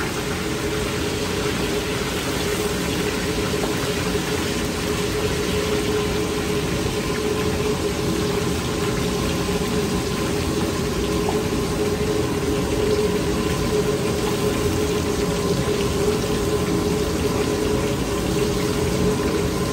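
Pieces of lobster claw deep-frying in a wok of oil at a full, rolling boil, the oil bubbling and sizzling steadily over a high gas wok burner; a quick par-fry at high heat.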